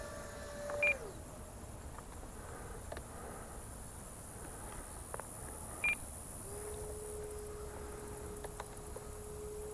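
Whine of a Horizon Hobby F-15E RC jet's 64 mm twelve-blade electric ducted fan, dropping in pitch as it is throttled back about a second in, then coming back from about six and a half seconds as a steady lower whine. Steady insect buzzing underneath, and two short high beeps, about one and six seconds in.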